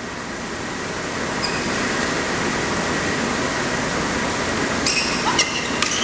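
Steady hall noise that swells over the first couple of seconds and then holds. About five seconds in, a badminton rally begins: a few sharp racket hits on the shuttlecock and short high squeaks of court shoes on the floor.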